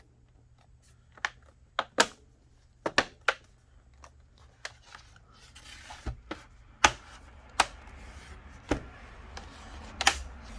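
Plastic clips of a laptop's bottom cover snapping into place as the cover is pressed on by hand: a series of about ten sharp clicks, irregularly spaced, with light rubbing of plastic between them in the second half.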